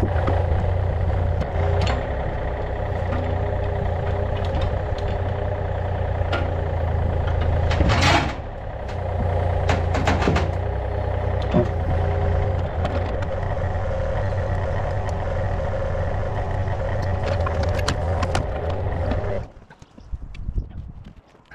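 Diesel engine of a Yanmar mini excavator running steadily while its boom works a lifting strap, with a few knocks along the way. The engine shuts off about 19 seconds in, leaving a few light clanks.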